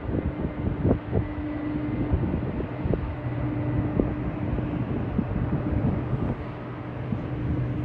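A steady low mechanical hum, with two held low tones, under an outdoor rumble, with a few light knocks in the first half.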